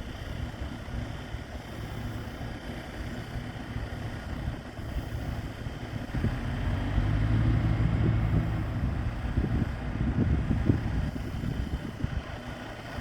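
Airport crash fire truck engine running as it approaches, a low rumble that grows louder about six seconds in and eases off near the end.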